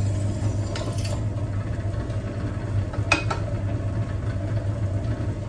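Electric drill motor running steadily while drilling a hole through a small aluminium block, with a couple of sharp metallic clicks about a second and three seconds in.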